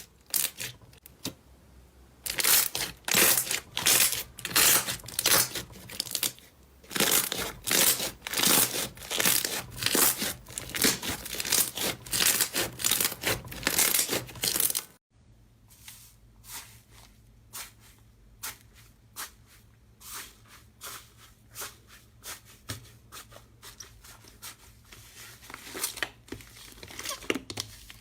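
Slime being squeezed and stretched by hand, giving off irregular sharp crackling and popping. About halfway through it cuts off abruptly to a quieter stretch of sparser pops and clicks.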